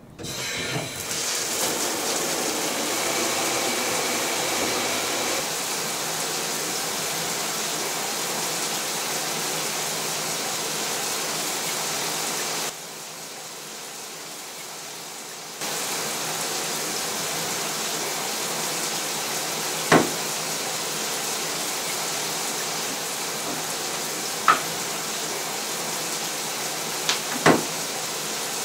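Shower turned on at a chrome mixer valve, the water spray hissing steadily. The hiss drops lower for a few seconds about halfway through, and a few sharp clicks or knocks come through it in the last third.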